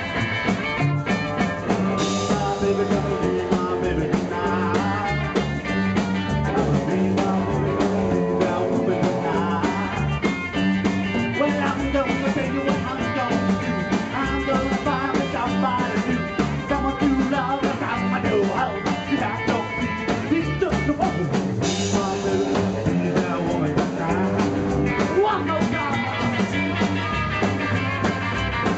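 Live rockabilly band playing: Telecaster-style electric guitar over strummed acoustic guitar, upright bass and drums, with a sung lead vocal. Two cymbal-like crashes stand out, one shortly after the start and one about three-quarters through.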